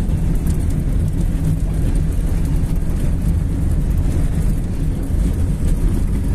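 Steady low rumble inside a car's cabin while driving on a dirt road: engine and tyre noise.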